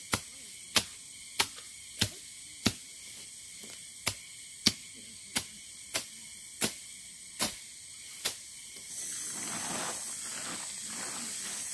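Sharp, evenly spaced strokes, about one every two-thirds of a second, of a hand blade cutting grass close to the ground. Near the end the strokes stop and a plastic tarpaulin rustles as it is spread out.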